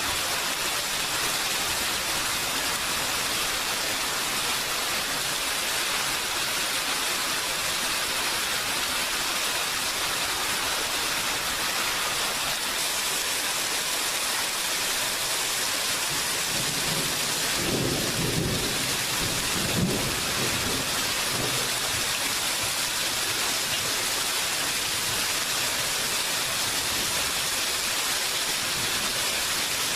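Steady rain falling, an even hiss throughout. About two-thirds of the way in, a low rumble of thunder swells for a few seconds and ends in a short sharp crack.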